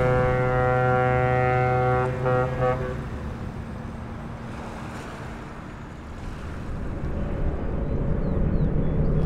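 A ship's horn sounds one long, steady blast that ends about three seconds in, followed by a steady wash of harbour water and wind noise that grows louder again near the end.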